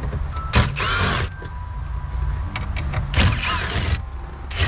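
Cordless drill with a socket spinning out bolts in two short bursts, about a second in and again past three seconds, its motor whine rising and falling with each run. A brief third burst comes near the end.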